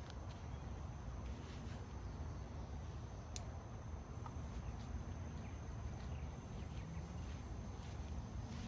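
Outdoor ambience: a steady low rumble of wind on the microphone, a faint steady high insect-like tone, and scattered faint rustles and ticks, with one sharp click about three seconds in.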